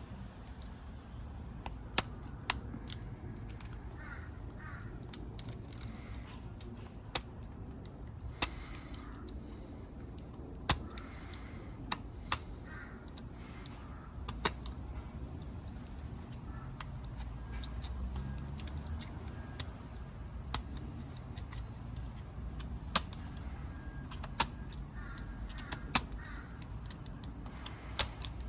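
Irregular small sharp clicks and scrapes of a knife trimming excess solder off a freshly soldered N connector on RG213 coax cable, over a faint steady high hiss.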